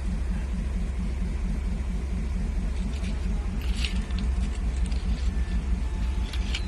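A heavy engine running steadily: a low, evenly pulsing rumble, with a few light sharp clicks and taps in the second half.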